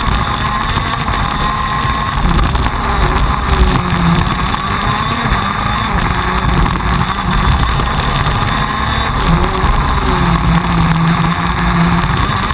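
TM 125 cc two-stroke KZ2 shifter kart engine running at racing speed, heard from the kart itself. Its pitch rises and falls continually as the kart drives through the corners.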